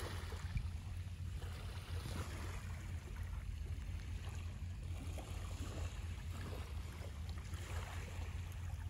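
Steady wind noise on the microphone, with small waves washing at the water's edge.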